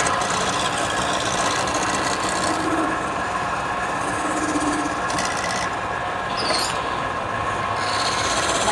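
Wood lathe running steadily while a tool works against the spinning wood, a rough scraping with a steady hum under it. A brief high squeak comes about two-thirds of the way in.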